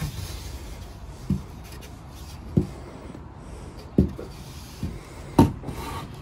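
Cut MDF panels being handled and shifted against each other: about five dull knocks, the loudest near the end.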